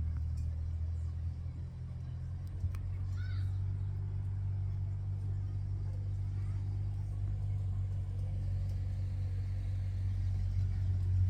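Steady low engine-like rumble, with a few faint clicks.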